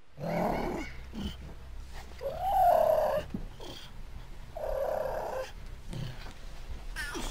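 Cougar calling with meow-like cries, three in all about two seconds apart, the middle one rising and then falling in pitch.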